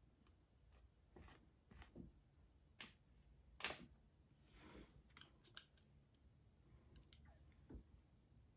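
Faint, scattered scrapes and clicks of a metal painting tool working through coarse acrylic texture gel on a canvas, drawing striations; the loudest scrape comes about three and a half seconds in.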